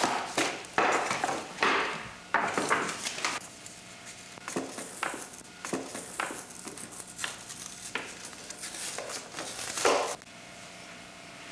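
Hands handling small objects and paper on a tabletop: a run of rustles and light knocks, busiest in the first few seconds and sparser after, cutting off abruptly about ten seconds in.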